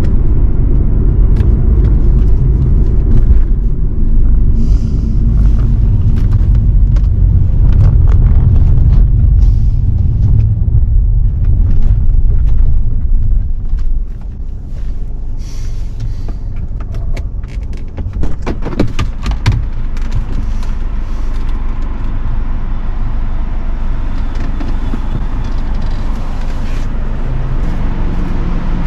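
Road rumble and engine noise heard inside a moving car's cabin. It eases off about halfway through as the car slows, and a cluster of sharp clicks and knocks comes a few seconds later.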